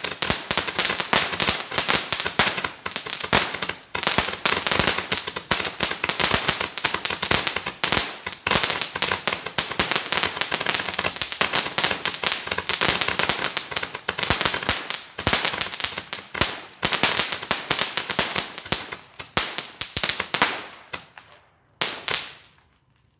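Firework going off in a fast, continuous string of sharp cracks and bangs, thinning out and stopping about twenty-one seconds in, with one last pop shortly after.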